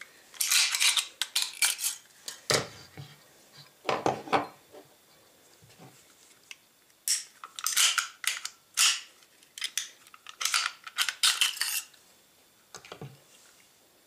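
Metal clicks, scrapes and clatter of Baikal MP-654K CO2 pistols being taken apart by hand: slides drawn off the frames and steel parts set down on a wooden table. It comes in several short bursts with brief pauses between.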